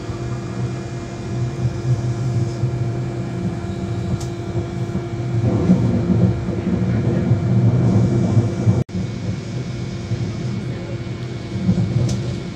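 Interior running noise of a passenger train rolling through a station's tracks: a low rumble of wheels on rail under a steady hum, swelling for a few seconds near the middle. The sound cuts out for an instant about nine seconds in.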